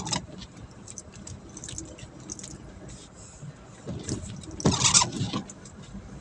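Steady low rumble of a vehicle, with scattered clicks and a louder rattling clatter about five seconds in.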